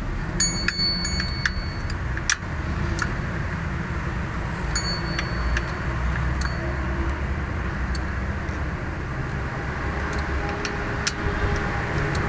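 Metal hand tools clinking now and then, with two brief metallic rings, over a steady low rumble of road traffic.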